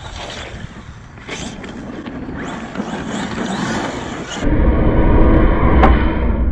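Large brushless electric RC monster truck landing and driving off across gravel, its tyres crunching and scattering stones, with scattered sharp knocks. About four and a half seconds in, the sound cuts to a louder, deep steady rumble.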